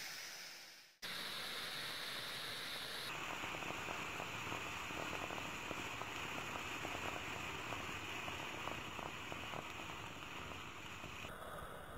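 Milk tea sizzling and frothing in a heated clay kulhad: a steady hiss with fine crackling of bubbles popping. It fades out briefly and starts again about a second in.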